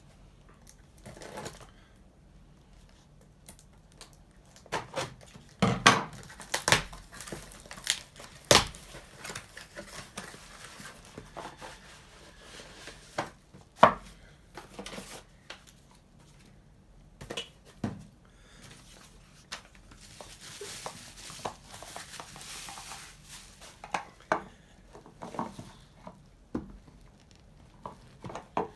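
Packaging of a single-cup coffee maker being opened by hand: cardboard and plastic rustling, crinkling and tearing, with irregular knocks and clicks as parts are handled. The sharpest knocks come about 6, 8.5 and 14 seconds in, and there is a longer stretch of rustling later on.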